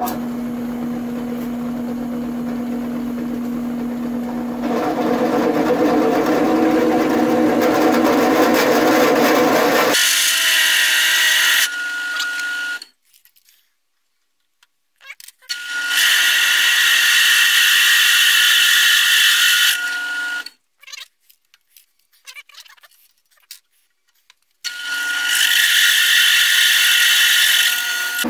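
Drill press running with a large twist drill cutting through a steel bar, drilling the hole for a 3/4-inch tapped thread. It comes in several loud stretches with two short silent gaps between them, and a steady high whine sits over the cutting noise in the later stretches.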